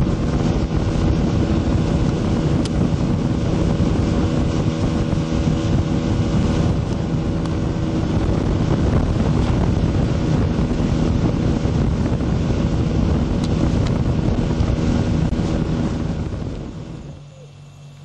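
A motor engine running steadily, with wind buffeting the microphone; the sound drops away sharply about 17 seconds in.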